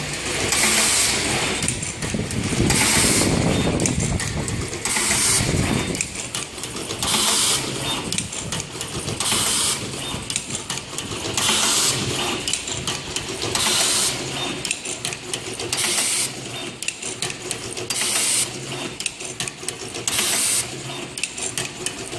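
An automatic wire tinning machine running through its cycle, with a short burst of hiss about every two seconds over a steady mechanical running sound.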